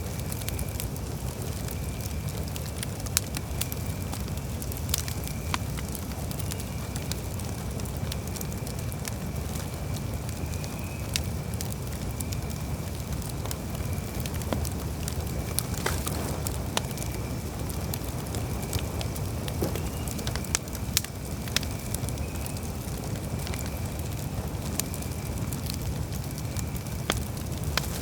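Wood campfire crackling: scattered sharp pops and snaps over a steady low rumble, with a faint steady high tone underneath.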